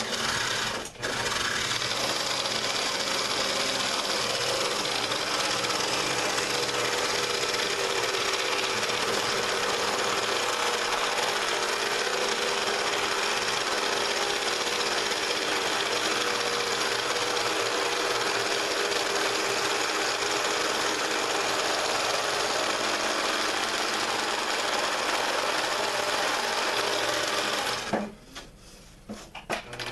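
Scroll saw running steadily with a blade fresh-tensioned by its pitch. It starts about a second in and shuts off shortly before the end.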